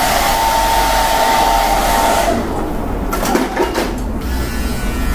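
Electric shaver running with a steady whine as it shaves a head down to the bare skin, switched off a little over two seconds in. A few light knocks and handling sounds follow.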